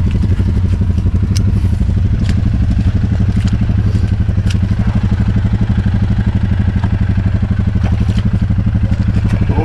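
ATV engine running at a steady low speed as the quad crawls through a mud hole, a pulsing engine note with a few sharp clicks and clatters over it.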